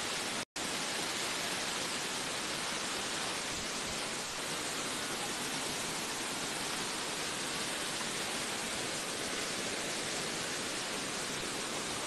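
Steady, even rushing of falling water from a waterfall, broken once by a very short dropout about half a second in.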